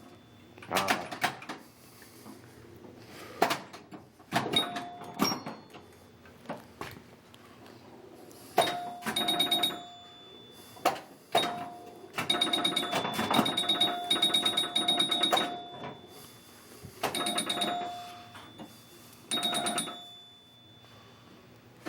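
Bally Night Rider pinball machine in play: sharp clicks and knocks as the ball strikes targets and the flippers fire, with several bursts of fast, repeated bell-like scoring rings as points add up, the longest lasting about three seconds.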